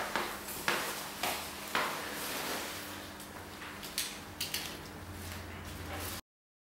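Scattered knocks and light clatter of household handling in a small room, a few sharp knocks in the first two seconds and a quick cluster about four seconds in, over a faint steady hum. The sound cuts off abruptly about six seconds in.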